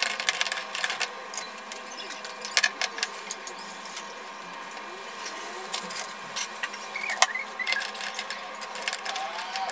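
Saucepan of water boiling hard with clams blanching in it, while a metal spoon and slotted skimmer stir and scoop, clinking against the pot rim and the shells in sharp irregular taps. A steady hum runs underneath.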